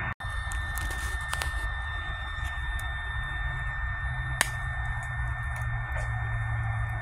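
BioLite wood-burning camp stove running under a grill of corn cobs: its built-in fan whirring steadily with a thin high whine, and a few clicks and one sharp pop from the burning fuel about four and a half seconds in. The sound cuts out for an instant just after the start.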